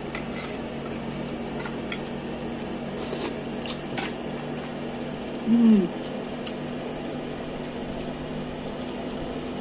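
Eating sounds: a person chewing, with a metal spoon and metal chopsticks clicking and scraping against a sauce bowl and a plastic food tray. A short voiced 'mm' about five and a half seconds in is the loudest sound.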